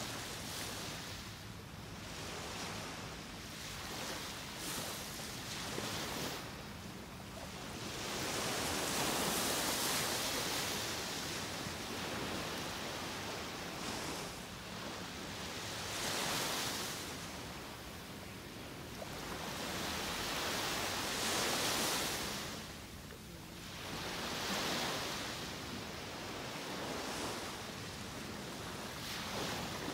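Gentle Gulf of Mexico surf: small waves breaking and washing up a sandy beach, the hiss of the water swelling and fading every few seconds.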